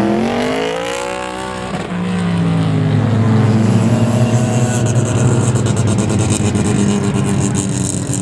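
Several circuit racing cars' engines running hard as the pack accelerates past. A note rises and then falls in pitch in the first two seconds, then the overlapping engines carry on at full throttle.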